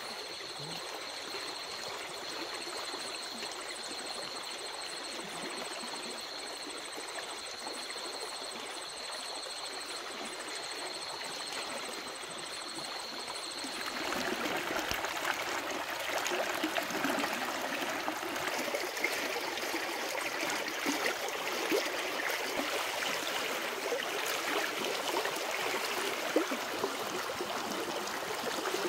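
Water running, with a steady high-pitched tone over it at first. About halfway through the tone stops and the water gets louder and more splashy.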